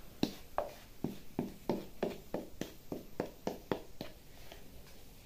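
A run of light, quick taps, about three a second, as sweet tapioca starch is knocked out of a container into a mixing bowl of beaten eggs and sugar; the tapping stops about four seconds in.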